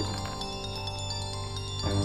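A mobile phone ringing with a ringtone of short, high chiming notes, over a sustained background music score. The ringtone stops about one and a half seconds in, and a brief click follows shortly after.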